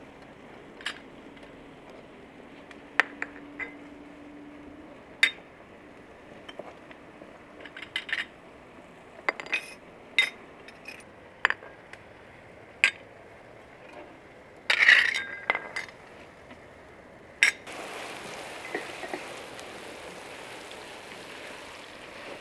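Pear-shaped glass tea glasses clinking against glass saucers as they are set down, a sharp clink every second or so, with a quick cluster of clinks about two-thirds through. Near the end, sliced onions start sizzling steadily in a frying pan.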